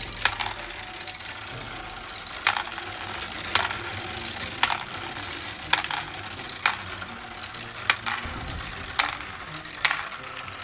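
Lego hockey-stick ball lift running: a small electric motor and gearing whir steadily, with sharp plastic clacks about once a second as the hockey-stick arms tip and pass the Lego balls upward.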